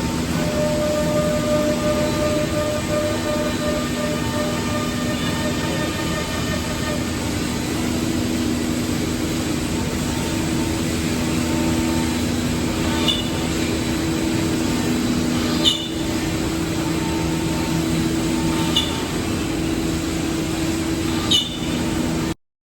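Four-head CNC wood router with 5.5 kW spindles running, its spindles humming in several steady tones over a hiss of cutting. Four short high squeaks come in the second half, and the sound cuts off suddenly near the end.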